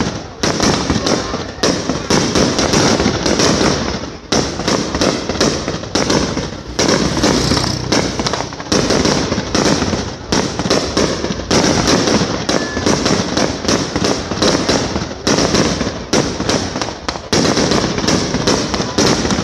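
Aerial fireworks display: a loud, nearly unbroken barrage of shell bursts, several a second and overlapping.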